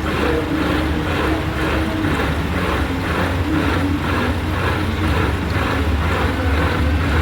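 Metal lathe running under cut as it machines grooves in a heavy steel starter gear: a steady low hum from the machine, with a rasping cutting noise that pulses about twice a second as the work turns.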